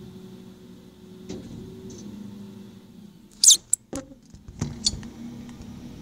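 Garbage truck's diesel engine idling with a steady low drone. About three and a half seconds in comes one short, sharp, high-pitched squeak, the loudest sound here, followed by a few quick knocks and clicks.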